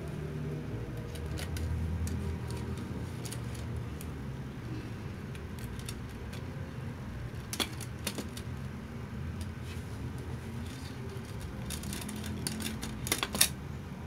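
Bicycle chain clinking and rattling as it is handled and pressed into place along a wooden strip on a tile floor, with scattered sharp metallic clicks that grow more frequent and louder near the end. A steady low rumble sits underneath.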